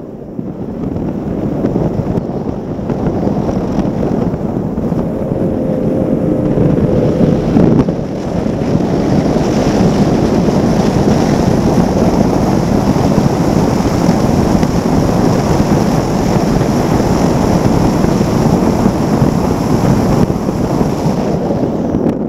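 Heavy wind buffeting on the microphone of a Formula One tunnel-hull powerboat running at racing speed, mixed with the outboard engine and rushing water spray. The noise dips right at the start and grows louder from about eight seconds in.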